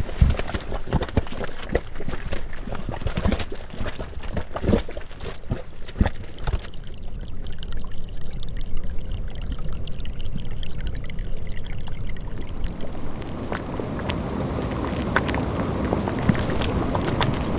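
Bubbling, gurgling geothermal pool: irregular low plops and splutters. About seven seconds in the sound turns muffled, its high end falling away, and around thirteen seconds it opens out again into a fuller hiss with scattered pops.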